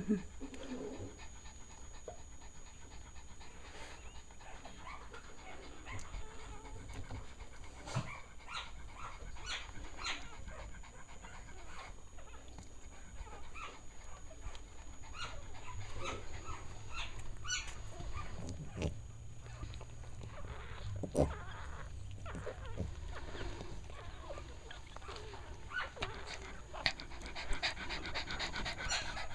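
Cavalier King Charles Spaniel panting, with scattered short clicks and rustles as newborn puppies are handled.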